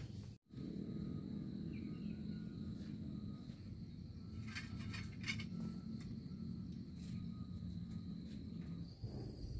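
Outdoor night-type ambience: a steady high insect trill over a low rumble of wind, with a few light clicks midway. The sound drops out briefly just under half a second in.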